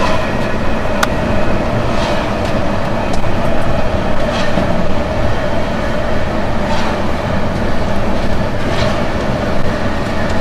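KZ8A electric locomotive running with a freight train, heard from the cab: a steady rumble of wheels on rail under a steady hum, with a light click every two seconds or so.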